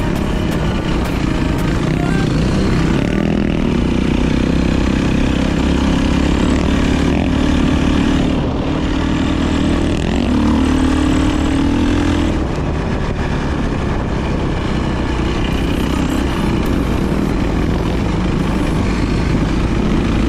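Dirt bike engine running while riding, its revs rising and falling, with a quick rise in pitch about halfway through and a heavy low rumble underneath.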